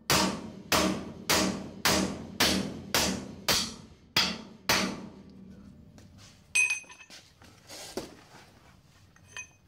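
Ball-peen hammer striking a fabricated steel bumper, nine ringing blows at an even pace of about two a second, knocking in the cut-out piece of a rectangular backup-light hole. A few lighter knocks and clinks follow.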